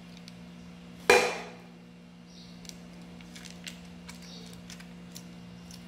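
Crisp potato sticks being scattered and pressed by hand onto a foil tray, giving light scattered clicks and crackles. There is one much louder clatter about a second in, and a steady low hum underneath.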